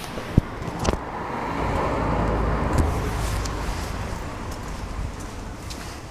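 A car passing along the street: engine and tyre noise build to a peak about two to three seconds in, then fade away. A couple of sharp clicks come in the first second.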